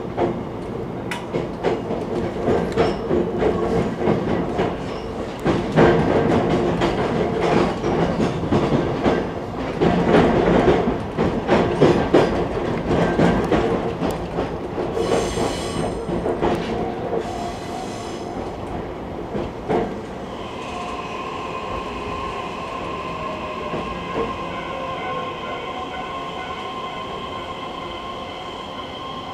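JR East E131-1000 series electric train running, its wheels clicking over rail joints with squealing tones, and a hiss about halfway. Then it goes quieter to a steady electric whine with a falling tone as the train slows for its next stop.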